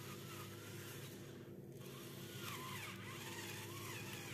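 Small electric pepper mill's motor whirring faintly and steadily as it grinds black pepper.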